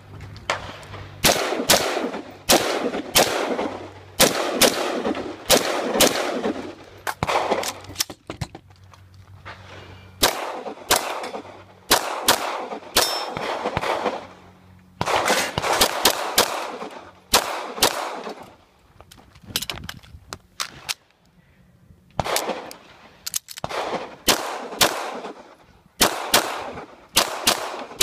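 Rapid strings of gunshots, fired in quick pairs and short bursts with breaks of a second or two between strings, each shot echoing briefly. A semi-automatic pistol is firing in the later part, and struck steel targets ring.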